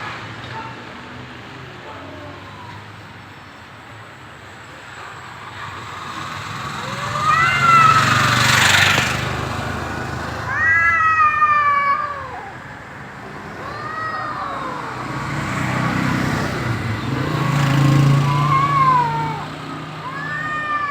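Cats yowling at each other in a fight standoff: a string of long, wavering caterwauls rising and falling in pitch, starting about seven seconds in and repeating every couple of seconds.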